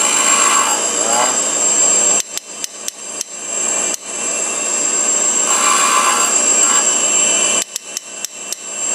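Cup wheel of an Oliver HD300 tool grinder grinding the cutting edge of an 82-degree countersink, a steady grinding hiss with a high whine, in two passes. Between passes the work comes off the wheel and a quick run of short clicks follows as the indexing head is turned to the next edge.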